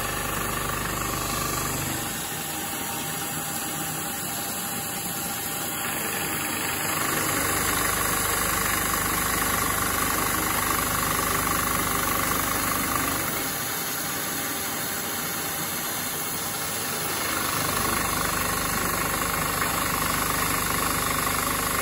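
Milling machine spindle running while a half-inch carbide end mill cuts a keyway slot in a 1018 steel hub, a steady cutting noise that grows louder and then eases off twice as the tool moves along the slot walls. It is a semi-finish pass on a contour tool path, leaving 3 thousandths on each wall.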